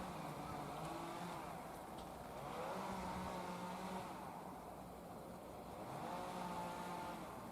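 Electric train of the 115 series humming steadily, with pitched tones that rise and hold and come and go. This is typical of its motors and on-board electrical equipment running as it starts up.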